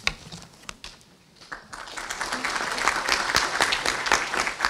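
Audience applauding: a few scattered claps at first, swelling into steady applause about two seconds in.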